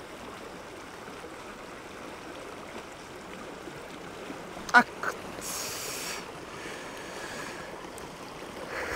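Steady rush of a mountain trout stream, broken a little past halfway by two short, loud, nasal calls in quick succession and then a brief high rippling whir.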